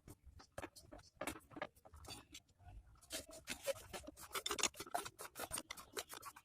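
Irregular light clicks, scrapes and rubbing of small metal parts and hand tools being handled while assembling a motorcycle engine, busier in the second half.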